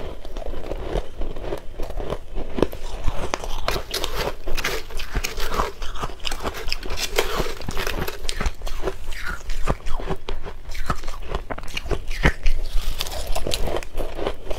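Crushed ice coated in matcha powder being bitten and chewed, a steady run of crisp, crackling crunches close to the microphone.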